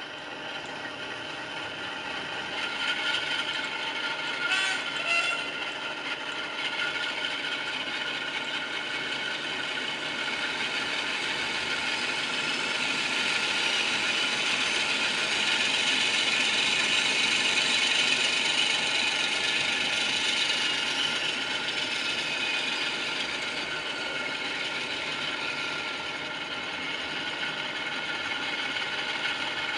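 Mehano Blue Tiger model diesel locomotive running under its ESU LokSound V5 sound decoder: the decoder's diesel engine sound from the model's small speaker, mixed with the whir of its motor and gears. The sound swells in the middle and eases again.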